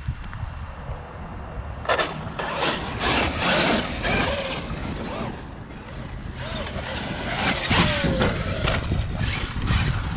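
Traxxas UDR radio-controlled desert truck being driven over stony ground: from about two seconds in its electric motor whines up and down with the throttle, among repeated crunches of tyres and stones. Wind rumbles on the microphone throughout.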